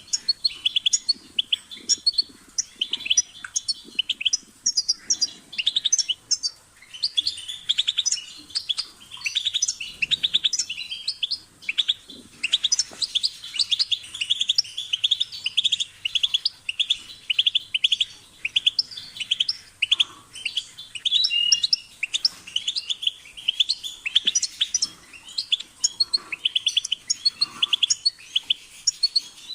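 European goldfinch singing: a fast, continuous twittering of rapid trills and chirps, broken only by brief pauses.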